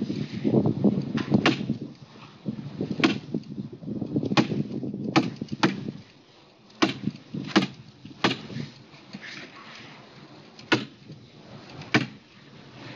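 A staple gun firing staples through a plastic trough liner into the trough's edge: about ten sharp snaps, spaced unevenly one to two seconds apart. Low rumbling noise fills the first couple of seconds.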